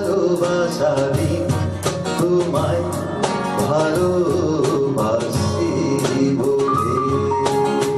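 A song: a singer's voice over instrumental backing with a regular beat.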